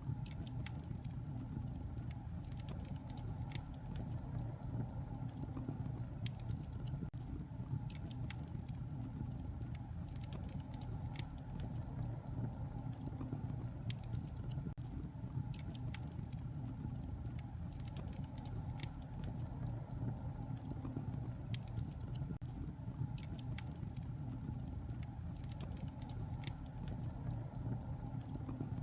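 Wood fire in a fireplace crackling, with frequent irregular pops and snaps over a steady low rumble of the flames.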